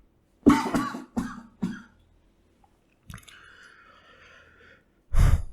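A person coughing into a close microphone: three quick coughs, the first the loudest, about half a second in, then a faint breathy hiss and one more loud burst near the end.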